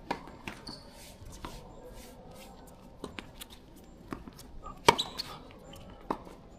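Irregular sharp racket strikes from play on the court, the loudest a little before the five-second mark, with brief shoe squeaks on the court floor.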